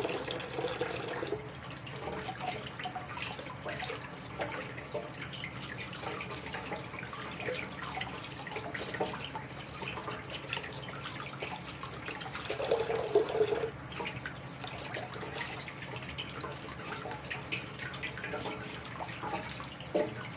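Tap water running into a kitchen sink while soaked mushrooms and fungus are rinsed, with small splashes and handling clicks. The water briefly grows louder about thirteen seconds in.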